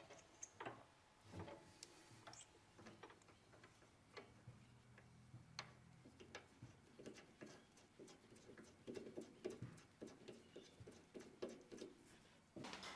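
Near silence with faint, irregular light clicks and taps.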